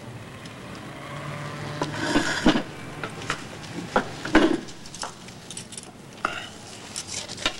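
Café clatter: crockery and cutlery clinking a few times, the loudest about four seconds in, over a low steady hum.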